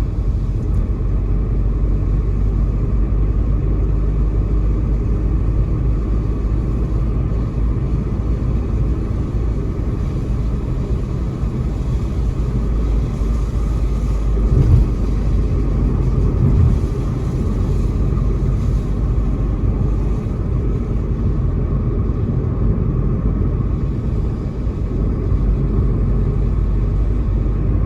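Car driving on a road: a steady low rumble of engine and tyre noise, with two brief louder bumps a little past the middle.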